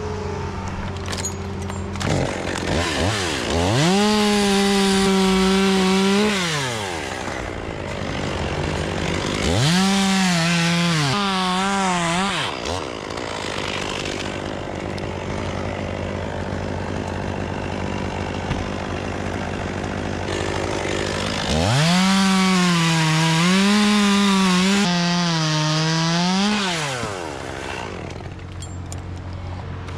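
Two-stroke chainsaw revved up to full throttle three times, cutting wood. Its pitch wavers under load on each cut, then it drops back to idle between cuts.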